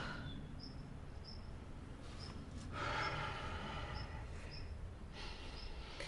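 A woman's tearful breathing, with a heavy breath about three seconds in and a softer one near the end. Faint, short high chirps repeat steadily in the background.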